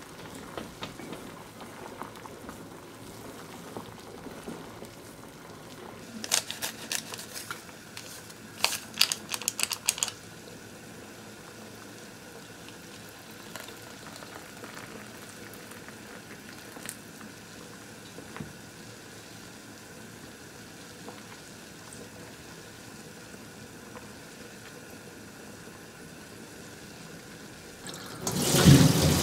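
Water simmering in a saucepan while noodles are stirred with chopsticks, then hot water poured from a kettle into a soup bowl; a cluster of sharp clicks and taps comes about six to ten seconds in. Near the end the pot is tipped into a perforated metal colander and the draining water rushes and splashes loudly.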